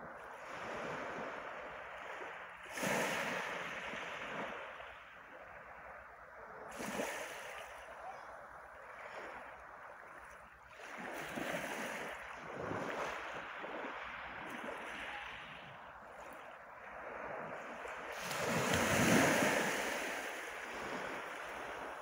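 Small sea waves breaking and washing up a pebble beach, in several surges that rise and fall, the loudest a little before the end.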